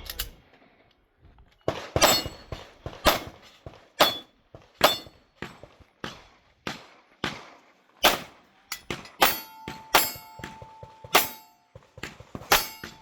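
Pistol fired in a steady string of shots during an action pistol stage, roughly one every half second to second. From about nine seconds in, several hits are followed by the ringing of steel targets.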